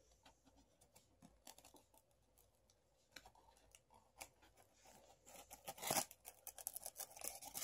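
Hands handling a cardboard shipping box and its packing: scattered faint clicks and rustles that grow busier and louder about five seconds in.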